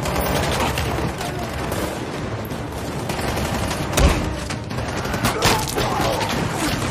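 Heavy gunfire, many shots in quick succession, with one louder bang about four seconds in.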